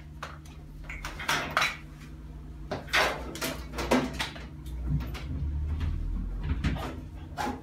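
Irregular clinks, knocks and rattles of metal tools and parts being handled and set down in a workshop, over a steady low hum.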